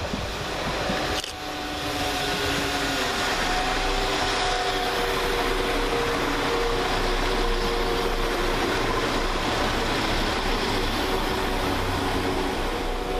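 Class 172 Turbostar diesel multiple unit running past at close range: the drone of its diesel engines with a few steady held tones, over wheel-and-rail noise. It grows louder about two seconds in and then holds level.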